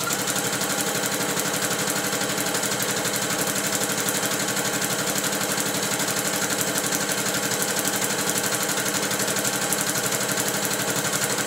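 Domestic electric sewing machine stitching steadily at speed through crepe paper, its needle beating rapidly and evenly over the motor's hum; the top thread tension is set to its highest and the thread is held back so that the paper gathers into ruffles. The machine stops right at the end.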